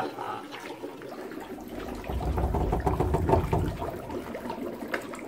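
Water sloshing and trickling in a bathtub around a plastic toy pirate ship as it is handled, with a louder low rumble from about two to four seconds in.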